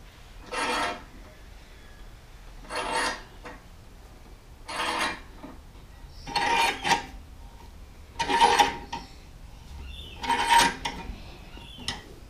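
A manual screw-type motorcycle scissor jack being cranked by hand: about six rasping metal strokes, roughly one every two seconds, louder toward the end, as its threaded screw raises the motorcycle's weight.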